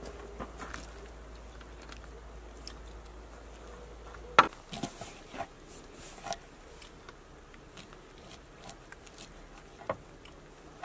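Kitchen knife slicing a lemon on a wooden cutting board: a sharp knock about four seconds in, then scattered light cuts and taps of the blade on the board.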